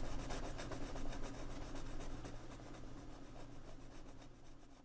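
Fine 0.7 mm colored pencil lead scratching lightly on sketch paper in quick back-and-forth coloring strokes, fading toward the end.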